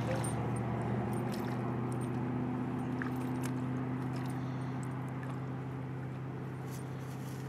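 A steady engine hum, even in pitch and slowly fading, with a few faint clicks and rustles over it.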